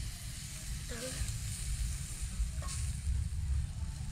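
Snails cooking on a grill, their juices sizzling in a steady hiss, with a low rumble underneath. A brief faint voice comes about a second in, and there is a light tap near three seconds.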